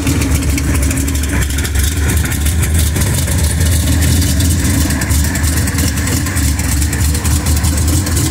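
Chevy II Nova drag car's engine idling loudly and steadily.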